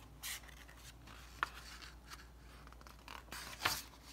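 Paper rustling and a sharp click as the pages of a picture book are handled and turned, with the loudest rustle near the end.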